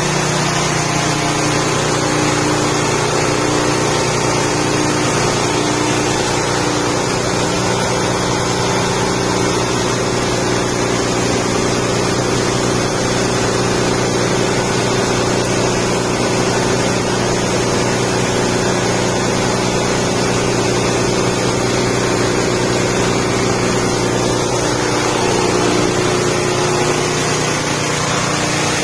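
Rice husk grinding machine driven by a 6.5 hp petrol engine, running steadily at a constant speed.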